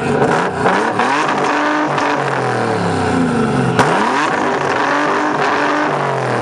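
Turbocharged BMW E46 M3 straight-six (HPF Stage 3 turbo kit) revved repeatedly through its exhaust, the pitch climbing and falling several times. There is a single sharp crack a little under four seconds in.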